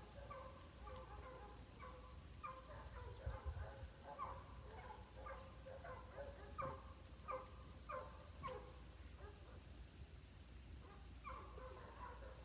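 Birds calling, faint: many short calls, each sliding down in pitch, repeated and overlapping in quick succession, with a brief lull near the end before they start again.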